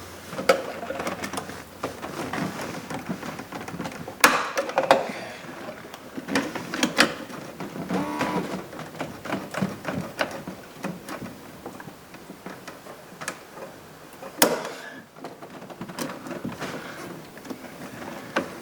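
Irregular clicks, scrapes and a few sharp knocks from hand work at a truck door hinge: a razor knife cutting the plastic wire ties that hold a compressed hinge spring, with metal parts shifting and knocking.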